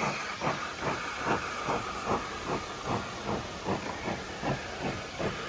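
Steam locomotive chuffing evenly, about two and a half exhaust beats a second over a steady steam hiss, as it pulls its train away slowly, heard from a coach behind it.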